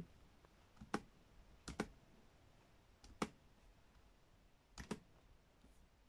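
Faint, sharp clicks of a laptop's buttons, about four times: single clicks about a second in and past the three-second mark, and quick double clicks near 1.7 s and near the end.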